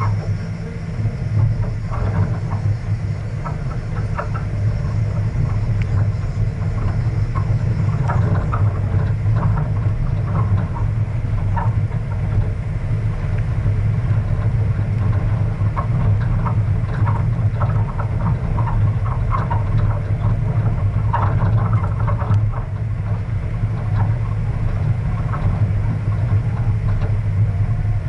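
A vehicle driving along a gravel dirt road: a steady low engine and road rumble, with frequent short knocks and rattles from the rough surface.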